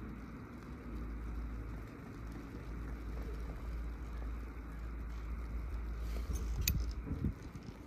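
Steady low rumble of a ride on the 1980 CTEC Sunrise chairlift, with wind on the microphone. A short clatter of knocks and a sharp click comes near the end.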